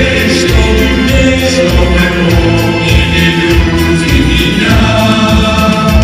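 A male vocal group singing together through handheld microphones over an amplified backing track with a steady beat.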